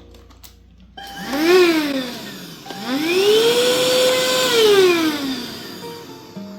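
Hoover HF1 cordless stick vacuum's motor switched on twice as a quick test of the bare unit. About a second in it spins up and winds straight back down. It starts again, rises to a steady high whine for about a second, and winds down once more.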